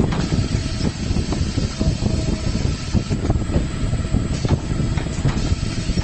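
Automatic paper can tube crimping machine running: a steady low mechanical rumble with scattered clacks, and a burst of compressed-air hiss from its pneumatic cylinders about three seconds in.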